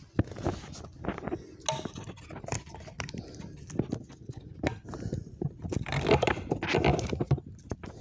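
Close handling noise: irregular clicks, knocks and rubbing as small parts and the phone are moved about by hand right at the microphone.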